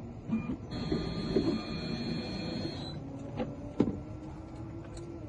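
A small electric motor whirs steadily with a high whine for about two seconds, then two sharp clicks follow.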